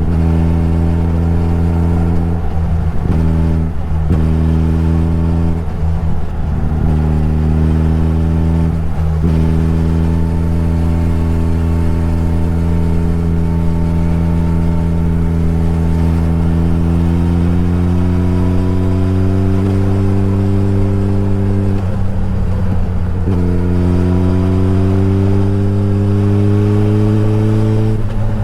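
Suzuki Hayabusa's inline-four engine pulling under way, its note slowly rising in pitch. It drops briefly a few times in the first ten seconds and again about 22 seconds in, then climbs again, as at gear changes.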